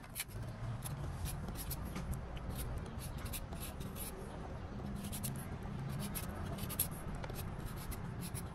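Kitchen knife cutting and peeling a firm guava held in the hand: irregular crisp scrapes and small clicks as the blade shaves the skin and slices the flesh, over a low steady background rumble.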